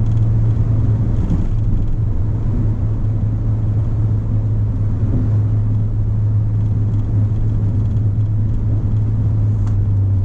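Ford Fiesta ST being driven at a steady pace: a constant low engine drone with road and tyre rumble underneath.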